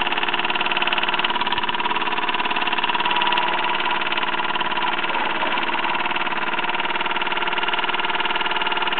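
Mamod ME3 toy marine steam engine running under steam at a steady speed, with a fast, even beat as it turns its propeller shaft through a universal joint. It runs smoothly.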